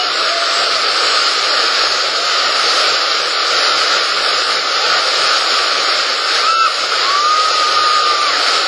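Loud, steady rush of river rapids churning around a raft, with faint shouting voices about two-thirds of the way through.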